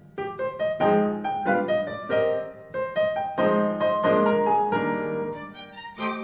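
Piano music played back through Yamaha NS-1000MM speakers: a quick run of struck notes, each ringing and fading. A new passage begins just after the start.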